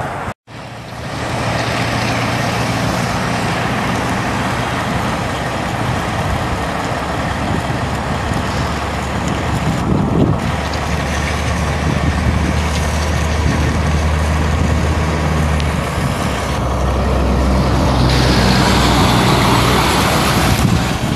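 1996 Nissan XE pickup's 2.4-litre four-cylinder petrol engine running as the truck drives slowly around, a steady low hum with road noise. There is a brief break just after the start.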